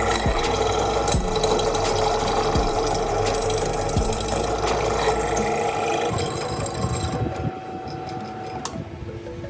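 A workshop power tool running steadily, its motor giving a mechanical whir with faint regular knocks about once a second, then winding down about seven seconds in.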